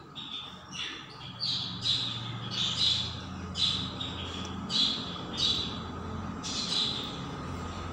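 A metal spoon stirring and scraping a dry fried radish mixture in an unglazed clay pot, with a short rasping scrape on each stroke, about one a second.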